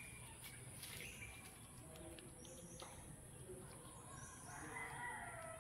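A rooster crowing faintly, one call of about a second near the end, over quiet outdoor background.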